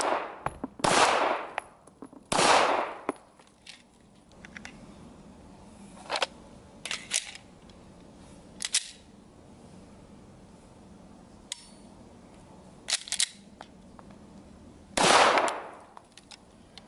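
Shadow Systems MR920 9mm pistol firing: three sharp shots about a second and a half apart, then a long pause with small clicks and knocks while the pistol is handled, then one more shot near the end.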